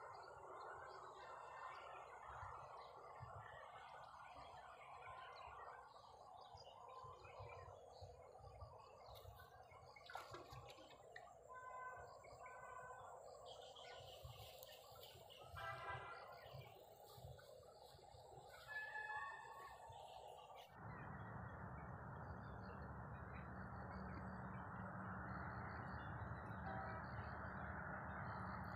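Faint outdoor ambience: steady background noise with a few short bird chirps scattered through the middle. About twenty seconds in, the background changes abruptly to a fuller, lower noise.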